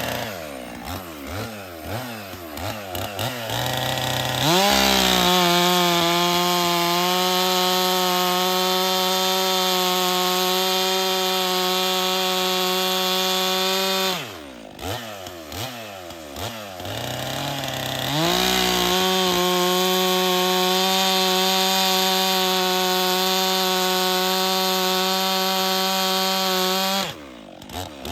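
Stihl MS 400 C two-stroke chainsaw blipping near idle, then held at full throttle twice for about ten seconds each while bucking a log. Between the cuts and near the end it drops back to idle.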